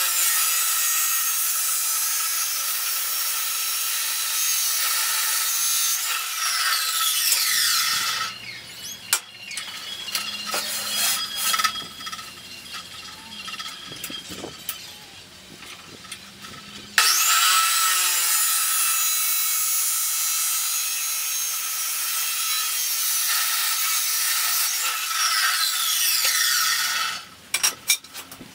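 Abrasive chop saw cutting 2x2 square steel tubing: two cuts of about eight to ten seconds each, a loud grinding screech over the motor's whine, which rises as the saw spins up about halfway through. Between the two cuts, a quieter stretch of knocks as the steel tube is moved.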